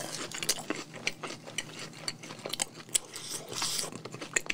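A person chewing a crunchy fried cheese ball, with many small, irregular crunches and mouth clicks.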